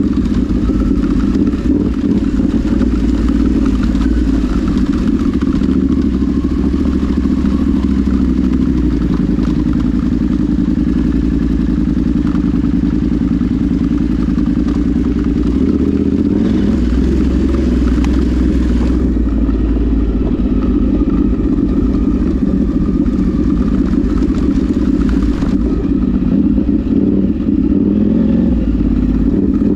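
Off-road vehicle engine running steadily under way over rough ground, with constant rough rattling noise.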